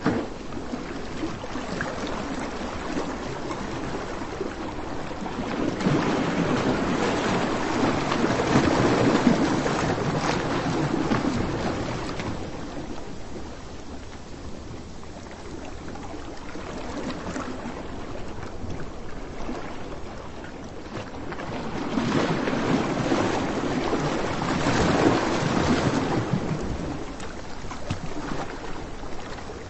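Ocean surf breaking and washing ashore, a steady rushing noise that swells in two long surges and eases off between them.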